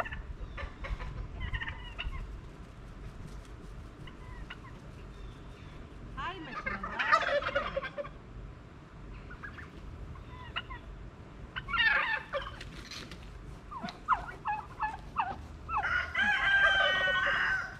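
Turkeys gobbling and calling in several bursts, the loudest about seven seconds in and in the last couple of seconds.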